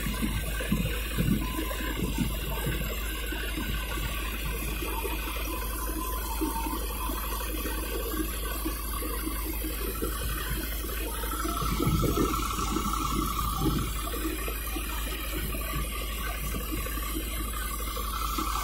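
Stationary mustard thresher, driven off the PTO of a Farmtrac 60 EPI PowerMaxx tractor, running under load: a steady rushing din with irregular crackling as bundles of mustard stalks are fed into the drum. A steady higher whine joins a little past halfway.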